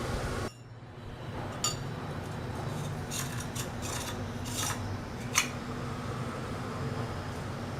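Metal parts being handled, with light metallic clicks and rubbing. A steady noise cuts off about half a second in, and a faint hum continues under the clicks.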